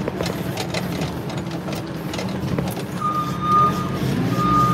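Farm vehicle's diesel engine running steadily, heard from inside the cab, with a reversing alarm beeping twice from about three seconds in as the vehicle backs up.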